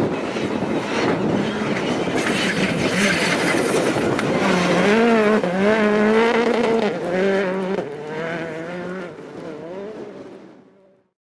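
Citroën C3 Rally2's turbocharged 1.6-litre four-cylinder engine revving hard as the car drives flat out on a gravel stage, its pitch rising and falling with throttle and gear changes over the hiss of gravel under the tyres. The sound fades away from about eight seconds in as the car drives off.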